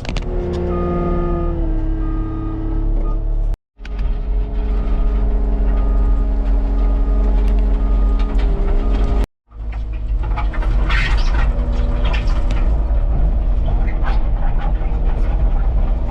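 Cat compact track loader's diesel engine running hard while it spreads and grades gravel, with its backup alarm beeping in two spells as it reverses. A scraping of the bucket over gravel comes in about two-thirds of the way through.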